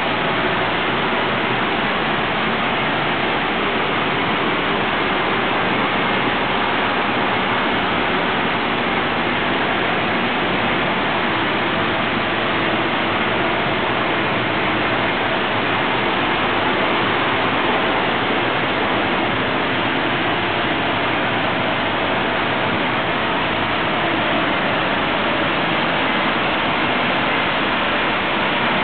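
Thermion Precision Arc twin wire arc spray gun spraying molten aluminum: the electric arc and its compressed-air atomizing jet make a steady, loud hiss.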